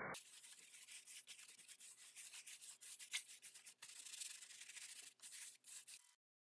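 Flat paintbrush scrubbing gesso tinted with ivory black acrylic across a stretched canvas: faint, quick back-and-forth brushing strokes, with one sharp tick about three seconds in. The sound cuts off abruptly near the end.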